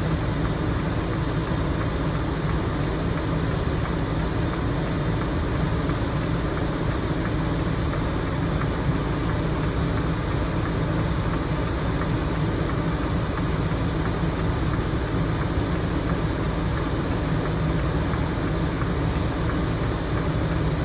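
A steady, unchanging low mechanical hum like an idling engine, with a drone of low tones under an even hiss.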